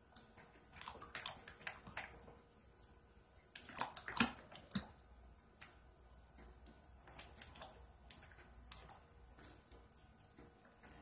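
A spatula stirs and scrapes thick, lumpy hot-process soap batter in a crock pot's ceramic insert. The sound is irregular wet squelches mixed with clacks against the pot, most busy about four seconds in.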